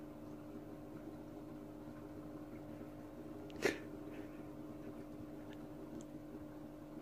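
Steady low hum of a bubble tube lamp's air pump, with one short, sharp noise about three and a half seconds in.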